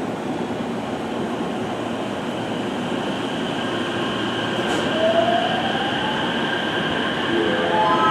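Electric train moving along the track: a steady rumble of wheels on rail, with a rising whine about halfway through. A series of short stepped tones begins near the end.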